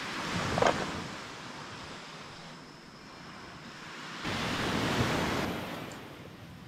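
Sea waves washing onto the beach, the surf swelling twice, with a brief squeak-like sound about half a second in.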